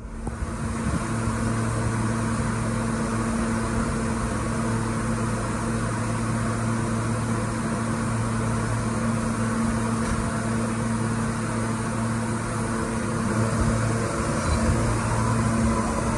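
New York City subway train standing at a terminal platform, its onboard equipment giving a steady hum with a low, constant tone. It grows a little louder near the end, where a higher steady tone joins in.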